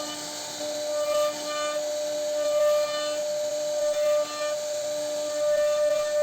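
CNC router spindle running with a steady high whine and a hiss as the bit cuts wood, the level swelling slightly now and then.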